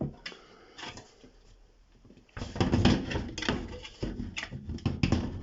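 Things being handled: a few light clicks, then from about two seconds in a run of irregular knocks and rattles, like a drawer or lid being worked.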